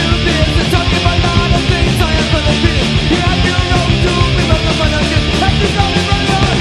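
Punk rock recording: a band playing fast and loud with electric guitars, bass and drums.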